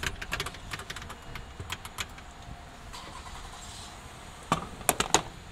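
Clicks and knocks of a gas-pump fuel nozzle being handled after refuelling, ending with several loud sharp clacks as the nozzle is hung back in the pump's holster near the end.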